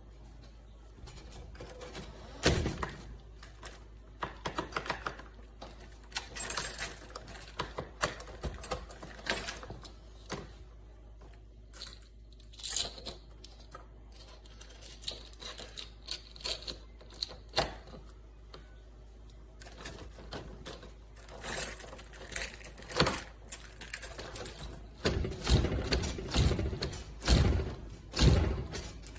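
Irregular metallic clicks, clinks and knocks of small hardware being handled, with a denser run of louder knocks near the end.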